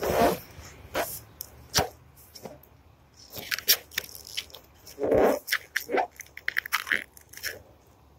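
Old black plastic stripe decal crackling and tearing as fingernails pick and peel it off a car's painted hood, in irregular clicks and short runs of rapid crackles, with a couple of louder tearing bursts. The brittle stripe comes away in small pieces and is hard to remove.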